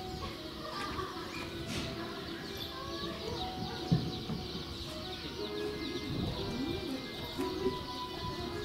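Birds calling in the background: many quick high chirps, and low calls that waver up and down in pitch, most clearly in the second half. A single sharp knock comes about four seconds in.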